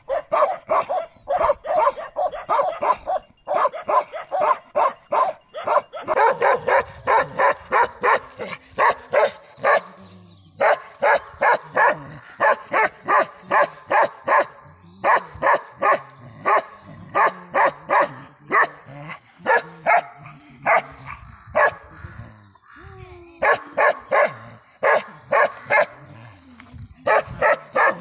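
Bakarwal dog barking in long, rapid runs of short barks, about two or three a second, with a couple of brief pauses.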